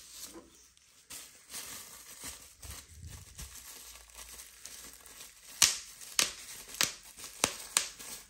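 Plastic bubble wrap crinkling and rustling as gloved hands pull it off and crumple it. Near the end come about five sharp pops, a little over half a second apart, as bubbles are squeezed until they burst.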